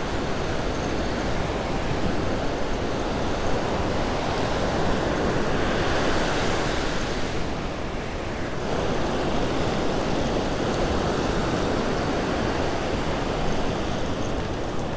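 Ocean surf breaking on a beach: a steady wash of waves in heavy swell. One wave rushes in louder about six seconds in and falls away about three seconds later. Wind buffets the microphone.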